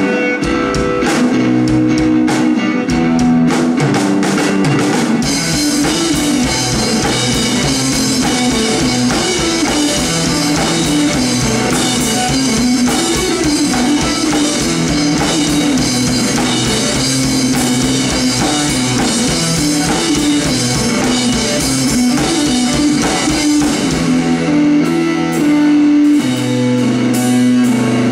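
Rock band playing live: an electric guitar riff over a drum kit. Cymbals wash in about five seconds in and drop back near the end.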